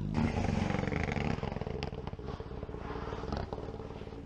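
Rally car engine running hard at high revs, with a rapid rough firing pulse, and two short sharp cracks about two and three and a half seconds in.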